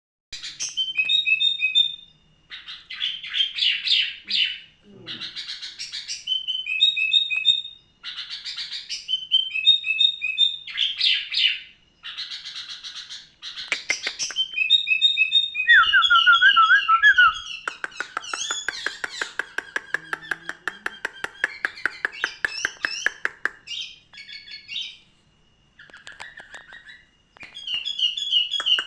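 A songbird singing loud, varied phrases of one to two seconds each, separated by short pauses. Past the middle comes a long run of fast, repeated notes.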